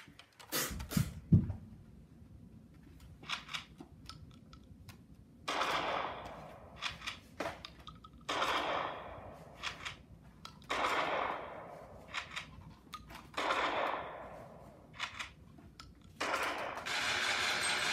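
Gunfire: a few sharp knocks about a second in, then four single bangs a few seconds apart, each trailing off over about a second, and a steady rattle of rapid fire starting near the end.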